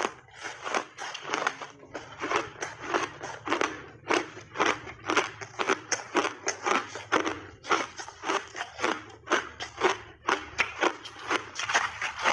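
Refrozen ice being bitten and chewed, a fast run of sharp crunches about two to three a second with a few short pauses.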